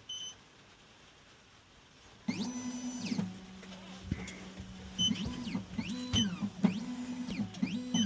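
Computerised key-cutting machine cutting a Ford Tibbe key. It beeps once, then from about two seconds in its stepper motors drive the carriage in a series of short moves, each whine rising, holding and falling, with a few more beeps between.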